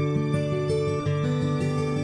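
Background music: a melody of held notes that step from one pitch to the next every fraction of a second.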